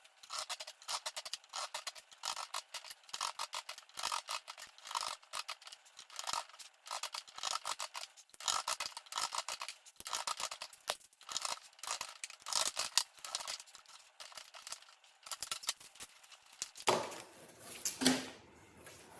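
Rapid, irregular scraping or rubbing strokes, several a second. Near the end it gives way to a fuller rustling noise with one sharp knock.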